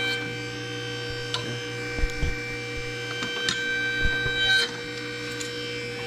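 A steady electrical hum with a few short metallic knocks and clicks as a freshly bent steel hydraulic line is handled and lifted off a hydraulic tube bender. The loudest clatter comes about four and a half seconds in.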